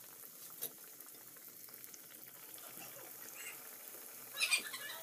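Food deep-frying in a metal kadai of hot oil, a steady sizzle. A metal skimmer stirs through the oil, with a clink about half a second in and a louder clatter against the pan near the end.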